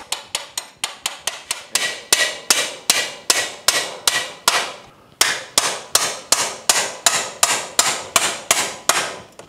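Hammer tapping a half-inch steel rod through a Honda Grom's footpeg bracket and swingarm pivot, driving the through-bolt out while the rod holds the parts together. Steady, evenly spaced metal taps, about three a second, with a short pause about halfway through.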